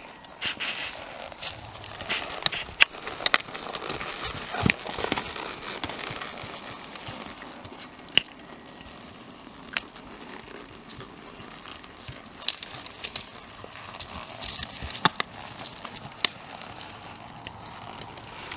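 Hooves of a Tennessee Walking Horse gelding on grassy, dirt ground, heard as scattered, irregular clicks and knocks over a steady outdoor hiss.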